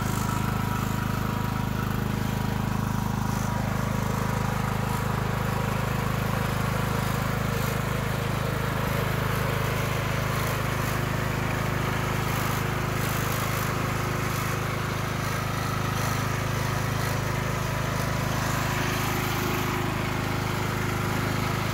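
Yard Machines 14.5 HP riding lawn mower running steadily as it drives across the grass: an even engine drone with a faint steady whine above it.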